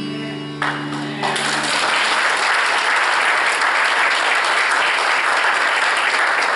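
Church congregation applauding, the clapping swelling up about half a second in and staying steady and loud. A held keyboard chord fades out in the first second or so.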